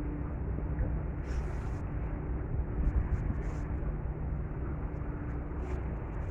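Staten Island Ferry's engines humming steadily under a wash of wind and water noise, with a few brief hisses.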